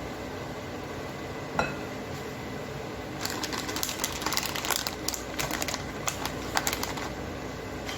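Kitchen handling noises over a steady background hum: a single sharp clink with a short ring about one and a half seconds in, then several seconds of rapid clicking and crinkling.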